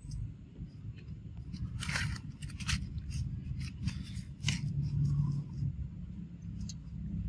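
Dry leaf litter crackling and rustling in short clusters as monkeys shift and move on it, loudest about two seconds in and again about four and a half seconds in, over a steady low rumble.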